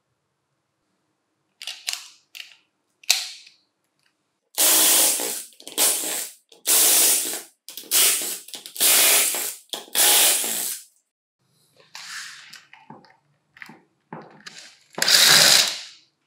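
Cordless electric screwdriver running in about a dozen short bursts, the longest in the middle, as it backs screws out of a jigsaw's housing.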